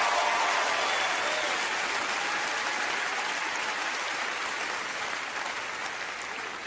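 Congregation applauding, the clapping fading steadily away.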